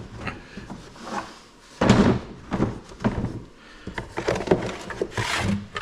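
Plastic boxes and crates being handled: a series of knocks and scrapes, with the loudest thunk about two seconds in.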